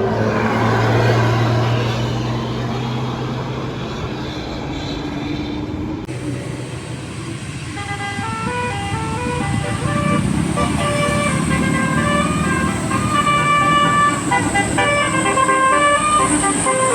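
Bus engine running with a steady low drone, and from about eight seconds in a telolet basuri multi-tone horn playing a quick melody of short stepped notes over it.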